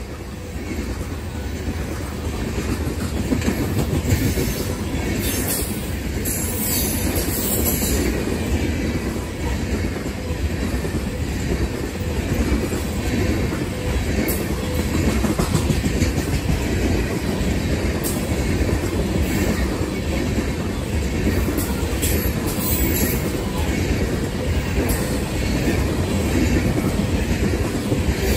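Loaded coal hopper cars of a freight train rolling past: a steady rumble of steel wheels on the rail with clickety-clack, growing louder over the first few seconds. A few brief high-pitched wheel squeals come through.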